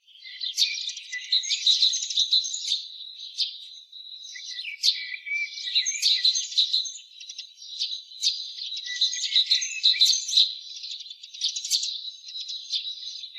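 Small birds chirping and twittering in a busy, continuous chorus of high-pitched overlapping calls, with a brief lull about four seconds in.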